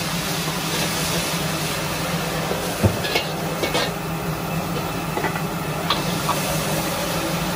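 Stir-frying in a wok over a high gas flame: steady sizzling and burner noise under a steady low hum, with a metal ladle knocking and scraping against the wok a few times, the sharpest knock about three seconds in.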